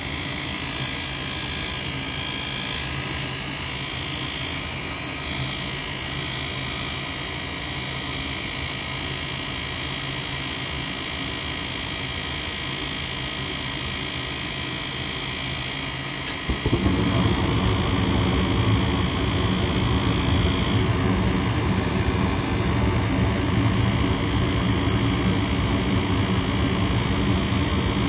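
Goodman gas furnace's worn inducer motor running with a steady whir and hum, a noise the technician puts down to an internal fault, likely bearings on their way out. About two-thirds of the way in, the gas burners light with a sudden jump to a louder, lower rumble that then holds steady as the flame stays on.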